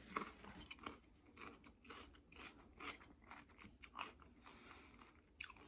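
Faint close-miked chewing: soft, irregular wet mouth clicks and smacks of a person eating.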